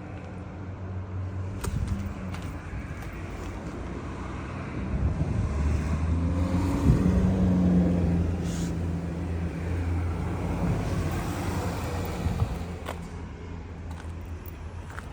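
Honda CBR900RR Fireblade (SC33) motorcycle engine running with a steady, even hum. It grows louder about a third of the way in, stays up for several seconds, then eases back toward the end.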